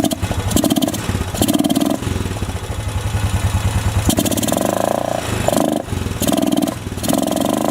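Freshly rebuilt 2007 Honda ATV engine running and being revved in a series of short throttle blips, one longer about four seconds in. The owners take the uneven running for a flooding carburetor.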